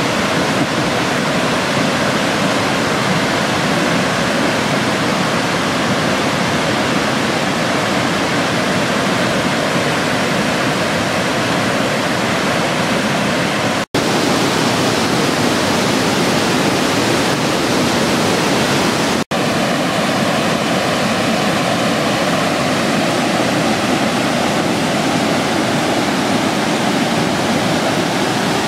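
Waterfall: water rushing steadily down shallow cascades over bare rock into a stream, cutting out for an instant twice.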